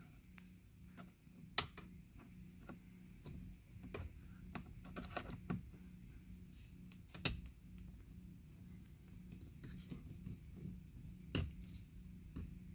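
Plastic pry tool scraping and levering at plastic trim clips, with faint scratches and small clicks and a few sharper plastic clicks about one and a half, seven and eleven seconds in.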